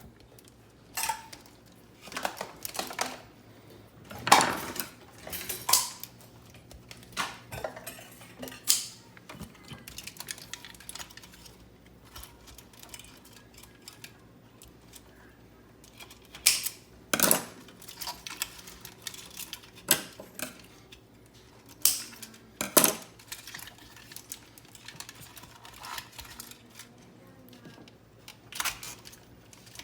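Parts of a Keurig coffee maker being handled during disassembly: hard plastic and metal pieces clacking and knocking against each other and the counter, about a dozen sharp clatters at irregular intervals.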